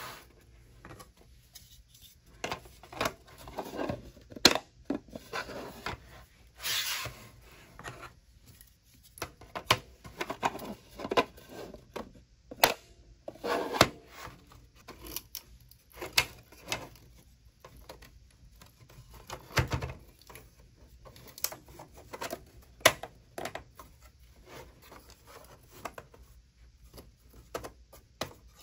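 3D-printed plastic crate panels being snapped together and handled: irregular sharp plastic clicks and snaps, with plastic rubbing and scraping between them.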